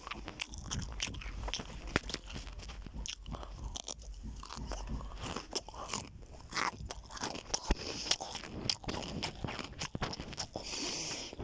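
Close-up chewing of crunchy food: a run of sharp, irregular crunches and bites.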